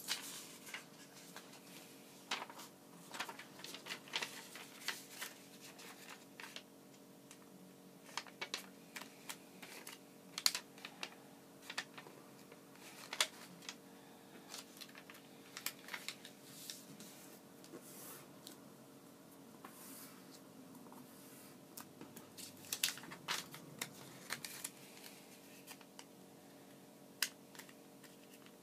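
Origami paper being handled and folded by hand: irregular crisp clicks and taps as the sheet is creased and pressed against a hard tabletop, with soft paper rustling between them. A faint steady hum runs underneath.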